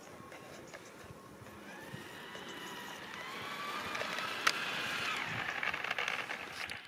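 Whine of an LGB garden-railway model locomotive's electric motor and gears as it pushes a snowplough through snow along the track. The whine rises in pitch and grows louder as the train approaches, with a single sharp click about four and a half seconds in.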